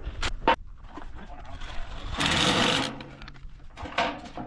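Cordless power drill or driver running in a short burst about two seconds in, as the rain cover is being assembled, with a brief motor hum as it winds down. A few sharp clicks of handled parts come just before it.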